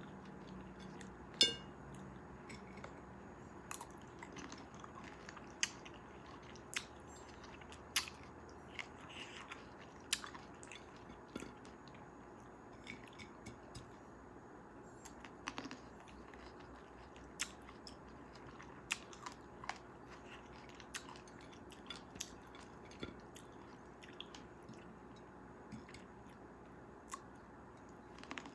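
Close-miked chewing of cherries: short, wet mouth clicks and smacks at irregular intervals over a faint steady background, with one louder click about a second and a half in.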